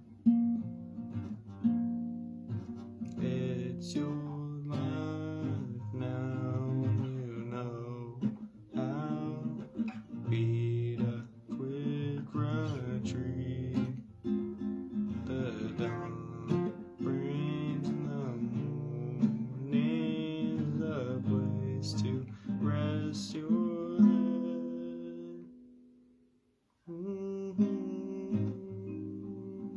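Nylon-string Cordoba classical guitar played and strummed, with a voice humming the melody along with it. Near the end the guitar rings out and fades to a brief silence, then the playing starts again.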